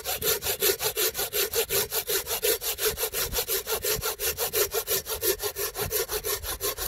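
Silky Pocketboy 170-10 folding pruning saw cutting through a 3 cm dry wood branch in quick, even back-and-forth strokes, about five or six a second.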